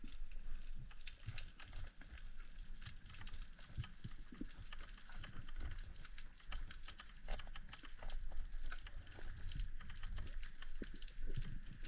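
Underwater ambience heard through a GoPro's waterproof housing: a dense, irregular crackle of small clicks over a low rumble.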